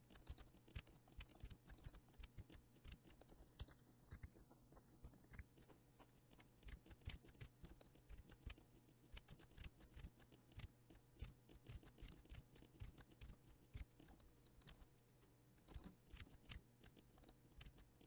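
Faint, irregular clicking of a computer keyboard and mouse as keys are pressed repeatedly.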